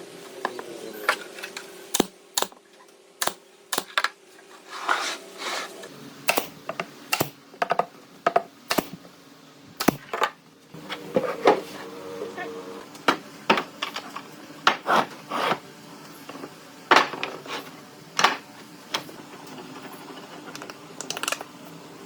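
Irregular sharp taps, knocks and short scrapes of wood pieces and hand tools being handled, about one or two a second, over a steady low hum.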